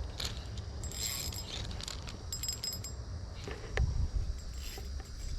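Fishing reel being cranked while a hooked traíra is played: light mechanical clicking and rattling, with a few brief high metallic tones, over a steady low rumble.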